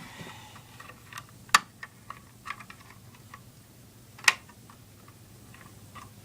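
Light clicks and taps of Lego parts being handled, with two louder sharp clicks about a second and a half in and about four seconds in.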